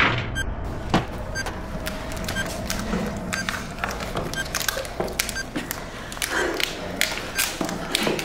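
A scuffle: irregular knocks, taps and thuds of hands and bodies struggling at close range.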